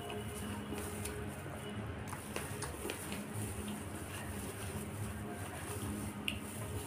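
Close-miked eating sounds: a person chewing and mixing rice and curry with plastic-gloved fingers, with scattered soft clicks. A steady low hum runs underneath.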